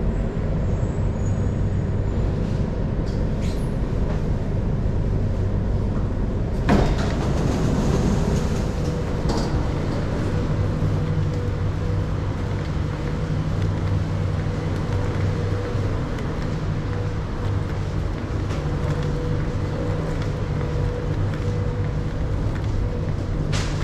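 Singapore MRT train noise: a steady low rumble and hum, with a sharp knock about seven seconds in.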